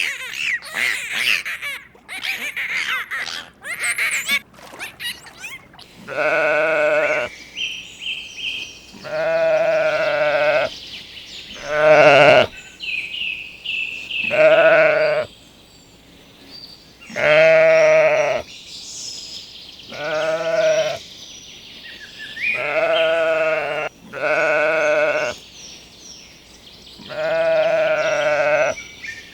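Livestock bleating: a series of about ten wavering calls, each about a second long, every two to three seconds, starting about six seconds in. Before them comes a jumble of clicks and high chirps.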